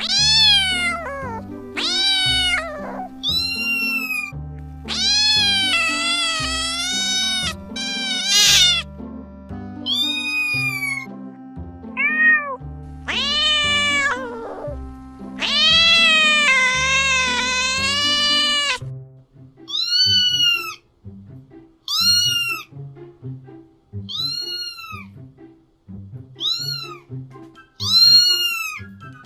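Domestic cat meowing over and over: a run of meows, two of them long and drawn out, then short meows about every two seconds in the second half, over background music.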